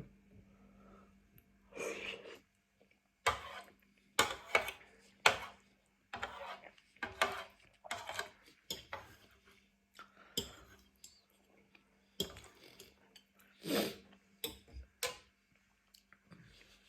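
Close-miked eating of spicy noodles and rice cakes: irregular short bursts of chewing and mouth noises, mixed with cutlery and dish clinks.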